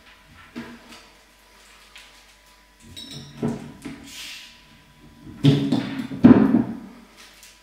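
Wrapping paper rustling and creasing as it is worked against a beer bottle's crown cap to pry it off, with louder scrapes and knocks of handling about five and a half to six and a half seconds in.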